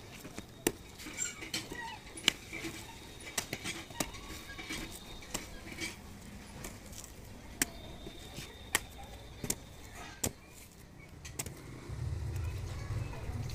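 A long curved knife chopping and slicing through the fibrous husk of palmyra palm fruit: sharp, irregular cuts and knocks. About twelve seconds in a steady low rumble starts beneath them.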